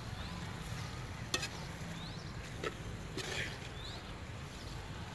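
Metal spoon stirring a curry in an aluminium pot, with a few sharp clicks of the spoon against the pot over a low steady background. Two short rising bird chirps are heard faintly in the middle.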